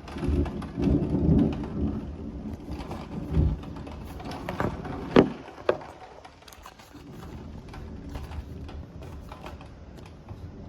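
Thunderstorm with rain falling and a low rumble of thunder during the first two seconds. Two short sharp knocks come about five seconds in.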